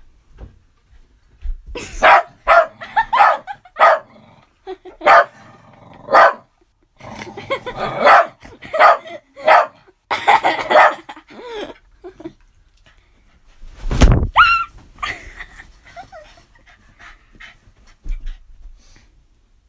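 A dog barking in quick runs of short, loud barks for about ten seconds. The loudest single bark comes a couple of seconds later, followed by a few fainter ones near the end.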